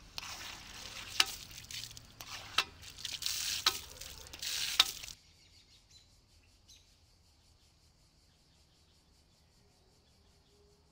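Water gushing and splashing from the brass push tap of a cast-iron street fountain, with a few sharp splashes in the flow. It cuts off suddenly about five seconds in, leaving near silence.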